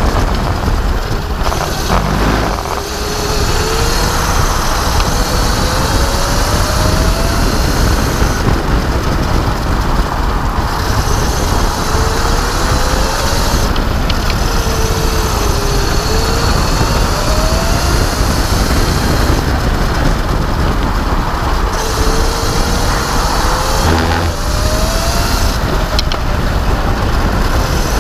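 Electric racing kart's motor whining as the kart laps, the whine gliding up in pitch as it accelerates and dropping back again several times. Underneath is a steady rush of wind and track noise on the onboard microphone.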